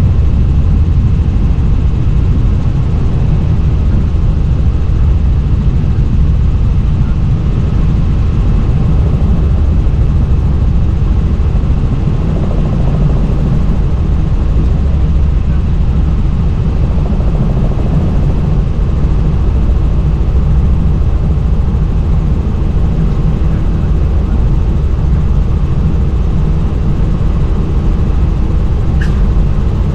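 A helicopter in flight heard from on board: a loud, steady low rumble with a constant hum of fixed tones running through it. There is a brief tick near the end.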